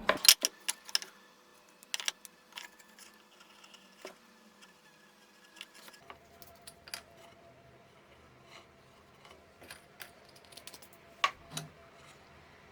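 Light clicks and taps from handling small objects on a workbench, such as glue bottles and small wooden pieces: a quick cluster in the first second, a few scattered ones after, and a sharper click about eleven seconds in.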